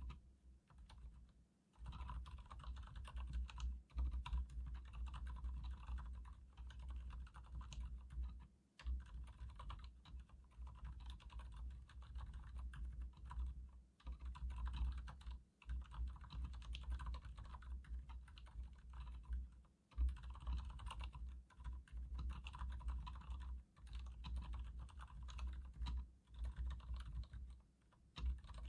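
Continuous typing on a Leopold FC900R mechanical keyboard with Cherry MX Silent Red linear switches: quick runs of soft, damped keystrokes with short pauses between bursts.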